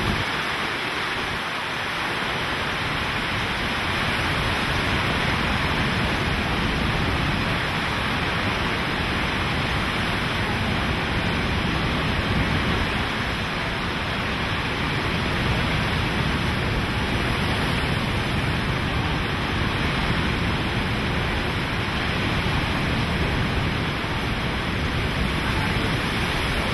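Hurricane-force wind and wind-driven heavy rain, a loud, steady rush of noise that never lets up.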